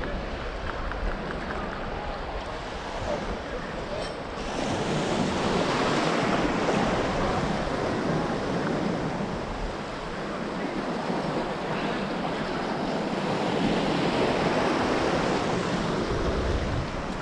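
Shallow ocean surf washing and swirling around the legs of someone wading, with wind on the microphone. The rush rises and falls, growing louder about four seconds in and again in the last few seconds.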